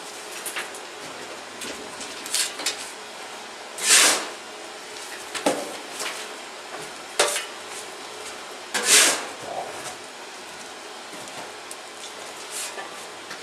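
Scattered sharp metal clanks and knocks from preparation work around a steam locomotive, with two louder short hisses about four and nine seconds in.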